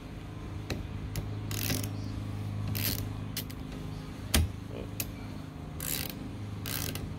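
Half-inch flex-head ratchet on a wiper-arm retaining nut, clicking in several short bursts as the handle is worked back and forth, with one sharp knock about four seconds in. A steady low hum runs underneath.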